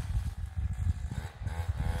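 A small petrol engine running, its pitch rising and falling as its speed changes, over an uneven low rumble.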